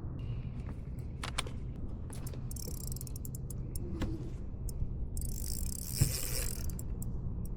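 Fishing reel being cranked, its gears clicking, with two short raspy bursts and a sharp knock about six seconds in.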